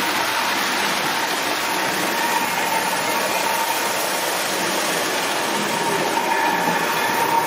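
Marx tinplate toy trains running: a steady whine from the electric locomotive motors over the even rattling rush of wheels on track.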